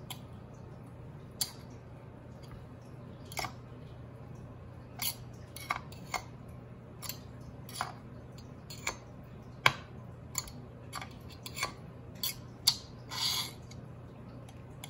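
Multimeter test-probe tips tapping and scraping on the finned anodized aluminum heat sink of an LED aquarium light: about fifteen irregular sharp clicks and one short scrape near the end, over a faint steady hum. No continuity beep sounds, because the anodized surface reads open.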